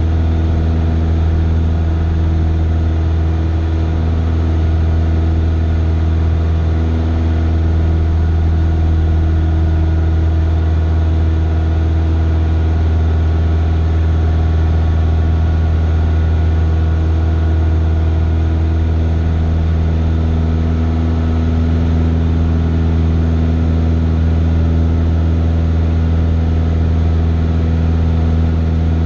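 Cessna 172's piston engine and propeller droning steadily in cruise, heard from inside the cockpit.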